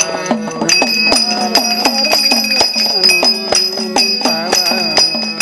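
Instrumental interlude of a Kannada bhajan: harmonium playing the melody while small hand cymbals ring steadily and a hand drum keeps a regular beat of strokes.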